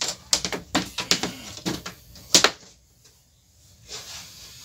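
Run of clicks and knocks from a small metal-cased bench DC power supply being handled and turned around on a workbench, with one sharper click about two and a half seconds in.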